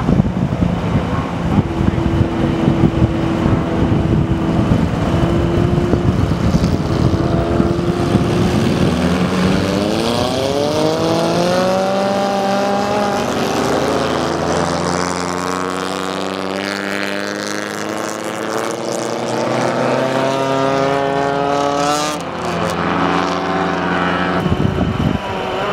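A pack of small race cars idling on the grid, then about nine seconds in the engines rev up together and pull away, several engine notes climbing at once. After that a number of cars run at different pitches as they race around the ice track.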